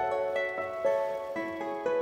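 Soft instrumental background music: a melody of held notes that step to a new pitch about every half second.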